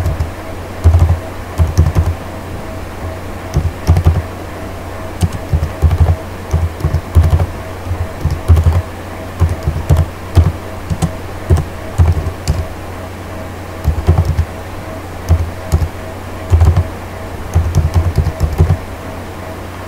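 Typing on a computer keyboard: irregular bursts of keystrokes with short pauses between them.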